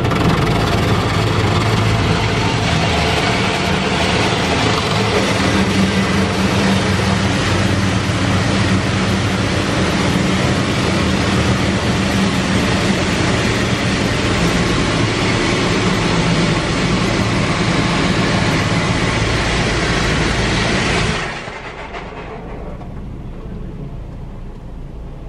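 Touchless LaserWash automatic car wash gantry working over the car, heard from inside the car: a loud, steady rush of water spray and machinery over a low hum, cutting off sharply about 21 seconds in.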